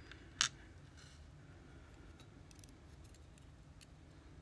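Small metal parts of a disassembled EVVA Dual lock being handled: one sharp click about half a second in, then a few faint ticks.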